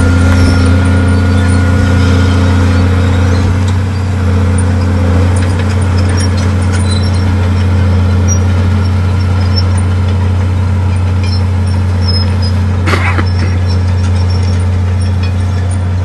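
Diesel engine of heavy earthmoving machinery running steadily with a deep, even drone, and a short higher-pitched noise about thirteen seconds in.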